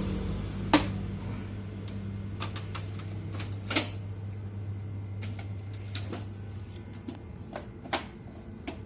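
Sharp plastic clicks and knocks, a few seconds apart, from handling and setting a copier's paper cassette, over a low steady hum that fades out about two-thirds of the way through.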